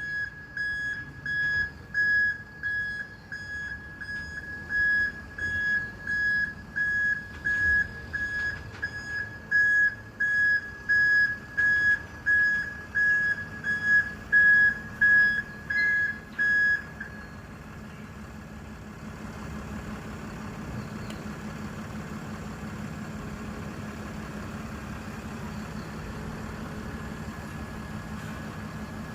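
Garbage truck's reversing alarm sounding a single high beep about twice a second, stopping suddenly about two thirds of the way through; after it, the truck's engine runs steadily.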